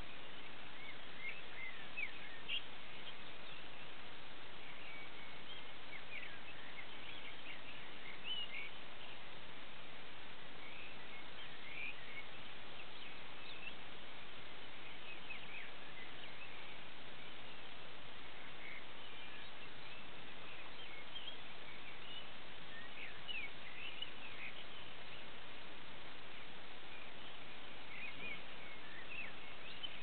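Dawn chorus of many songbirds twittering: frequent short, high chirps and trills over a steady background hiss.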